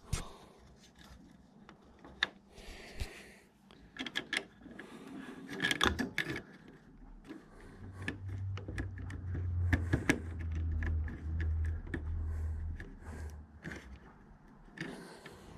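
Scattered small clicks, taps and rubbing as hands and tools work at the starter switch and its cable under an MGA 1600's dashboard. A low hum comes in about halfway through and lasts several seconds.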